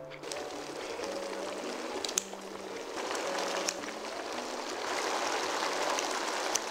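Kimchi-wrapped pork belly braise bubbling in the pan, a steady simmering hiss that grows a little louder partway through. A few sharp clicks from the kitchen scissors and tongs cutting the rolls, with soft background music underneath.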